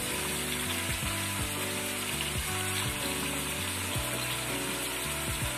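Chicken pieces frying in a pot on a gas stove, a steady sizzle, with soft background music.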